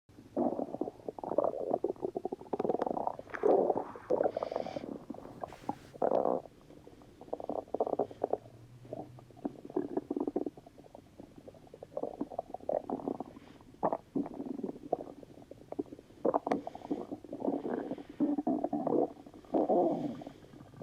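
Stomach rumbling: irregular gurgles and squelches coming in clusters, with short lulls between them.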